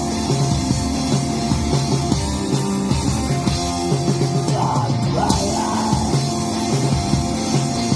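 Live rock band playing with distorted guitars, bass and drums, loud and steady, in a punk-leaning style.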